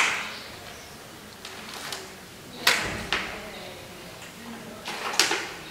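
A few short, sharp clicks and knocks, three or four in all, over quiet room noise in a hall with some echo.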